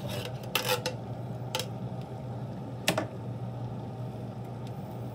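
A utensil scraping thick condensed cream of mushroom soup out of a tin can and knocking against the can and a frying pan, a few short knocks, the sharpest about three seconds in. A steady low hum runs underneath.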